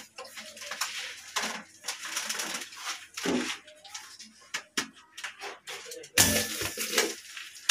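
Handling noise from a plastic flush tank held against a tiled wall while its screw holes are marked in pencil: scattered light clicks and knocks of plastic and pencil on tile, with one louder bump about six seconds in.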